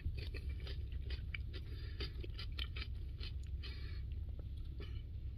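Close-up chewing of crunchy raw cucumber chunks from a salad, a run of irregular crisp crunches several times a second, over a low steady hum.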